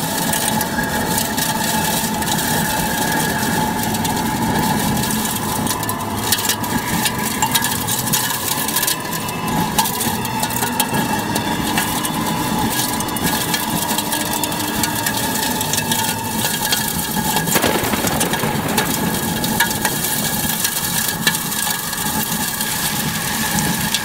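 Strong tornado wind buffeting a camcorder microphone: a loud, dense rush of noise full of crackles and knocks, with a steady high whine underneath. One sharper knock comes about two-thirds of the way through.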